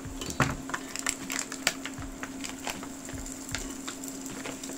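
Diced lardons tipped into a non-stick frying pan of apple pieces, with irregular clicks and taps of a wooden spoon against the pan over a steady faint hum.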